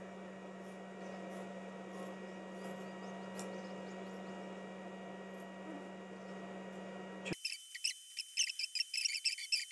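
A steady electrical room hum with a few faint snips of scissors cutting cloth. About seven seconds in, the hum cuts off abruptly and small birds chirp rapidly and high-pitched, louder than anything before.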